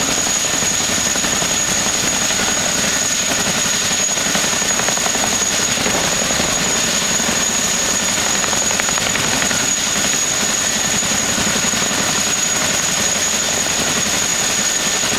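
HVAC air-conditioning unit running: a loud, steady rush of fan and air noise with a constant high whine over it.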